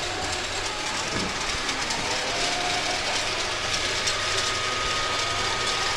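Steady mechanical din inside a chicken house, with a few faint hen calls over it.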